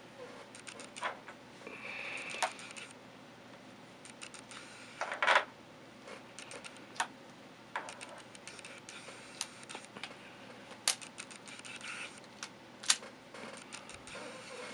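Dan Wesson CO2 revolver being loaded by hand: scattered small metal clicks and clacks of the BB shells and cylinder. A short clatter comes about a third of the way in, and there are sharp single clicks later on.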